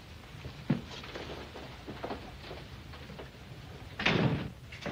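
Soft footsteps and small knocks of a man walking out of a room, with a click about a second in. About four seconds in there is a louder, noisy sound lasting about half a second.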